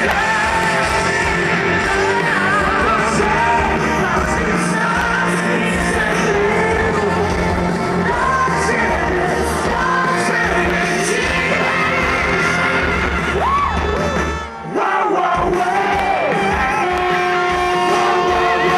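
A pop song performed live by a group of singers on stage, amplified over a stadium PA, with shouts mixed in. The sound drops out briefly about three-quarters of the way through.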